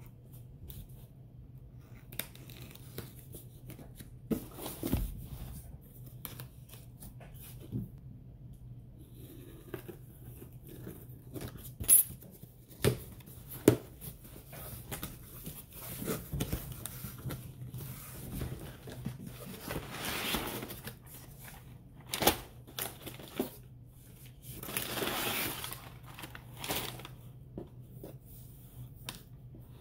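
Cardboard shipping box being opened by hand: packing tape torn and peeled off, and the flaps bent back with scraping, rustling and knocks of cardboard. Two longer tearing stretches come about twenty and twenty-five seconds in.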